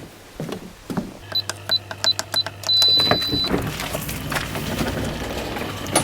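A run of short, high electronic beeps, then one longer beep, over a steady low electric hum that starts about a second in. A louder, noisy rush of sound comes in about three seconds in.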